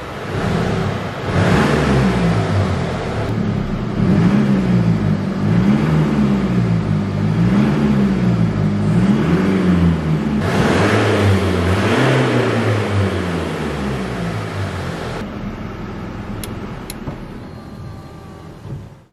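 Mercedes C 220 d's 2.0-litre four-cylinder turbodiesel revved repeatedly while parked, its pitch rising and falling every second or so, with harder blips a second and a half in, at about four seconds and at about ten seconds. From about fifteen seconds the revving stops and the sound fades.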